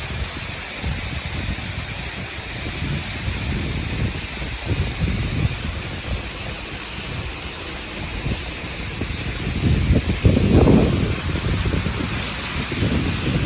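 Steady rushing hiss of a waterfall, with irregular gusts of wind buffeting the microphone that are strongest about ten seconds in.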